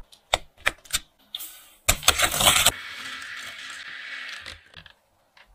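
A few light clinks of a spoon against a glass bowl. About two seconds in, an electric hand mixer starts whipping egg batter in a metal bowl and runs steadily until it stops shortly before the end.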